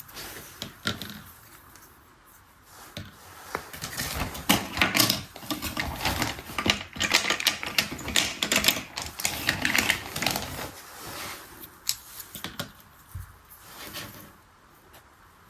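Rapid clicking and clattering of small hard plastic toy parts being handled, dense from about four to ten seconds in, with scattered single clicks before and after.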